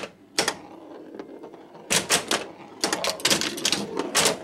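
1981 Bally Medusa pinball machine in play, its playfield mechanisms giving off sharp clacks and knocks in irregular clusters: one about half a second in, a burst about two seconds in, more around three seconds and near the end. No game sound effects play over them, because the machine's Squawk & Talk sound board is dead.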